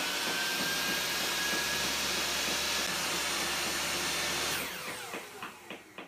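An electric motor running steadily, with a faint whine rising slightly over the first few seconds. About four and a half seconds in it stops, fading out over a second or so with a few clicks.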